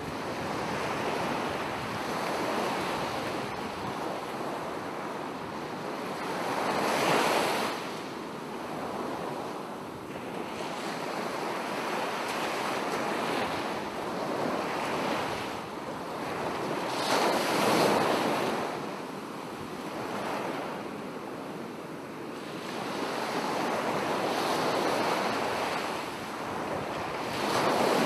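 Ocean surf: a steady wash of breaking waves, swelling louder as bigger waves come in about seven, seventeen and twenty-eight seconds in.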